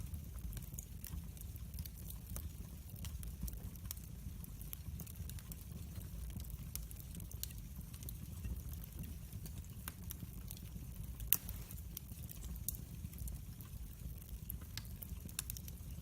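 Wood fire burning in a fireplace: a steady low rumble of flames with irregular sharp crackles and pops, one louder pop a little past halfway.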